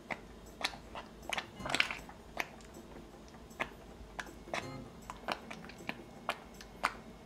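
Silicone spatula stirring thick sweet pumpkin sauce in a pot: an irregular run of short wet smacks and squelches, about fifteen of them.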